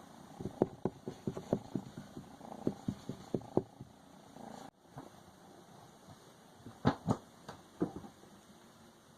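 Kitten purring close to the microphone, with irregular clicks and rustles of handling. The sound drops out sharply about halfway through, and a few more clicks follow later.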